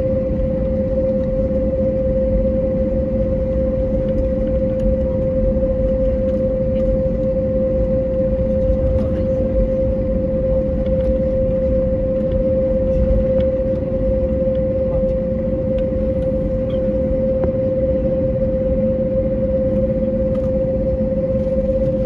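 Cabin noise of an Airbus A321neo taxiing, its Pratt & Whitney PW1100G geared turbofans at idle: a steady low rumble with one constant mid-pitched tone held throughout.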